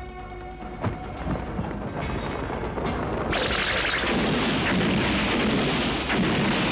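Film explosion sound effect: a sudden loud rushing blast about three seconds in, followed by a deep rolling rumble that carries on, over a dramatic score.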